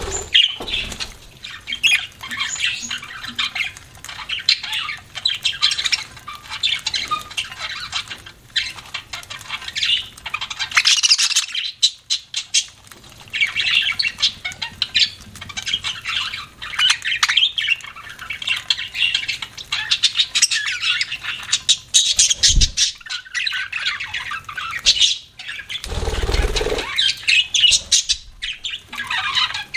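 Pet budgerigars chattering and chirping continuously, a dense run of quick high-pitched calls, with a short dull thump about two-thirds of the way through and another near the end.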